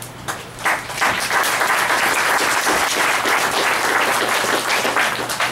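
Audience applauding: a few scattered claps at first, then steady applause from about a second in, tapering off near the end.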